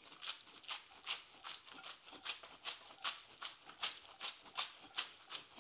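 Spaghetti being flipped in a frying pan in a loose egg-and-cheese carbonara sauce: an even run of soft wet slaps, about three a second. The tossing works the pasta's surface starch into the sauce to thicken it.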